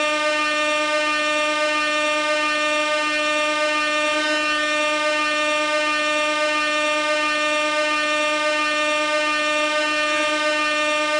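Gas air horn sounding one long, unbroken, steady note.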